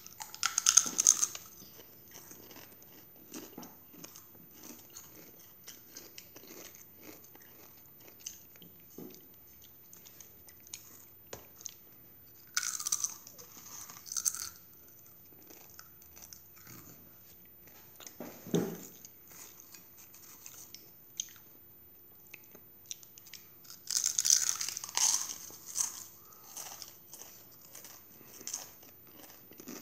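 People chewing crunchy Doritos tortilla chips close to the microphone: a string of small crunches, with louder bouts of crunching near the start, about 13 seconds in, and again around 24 to 26 seconds in.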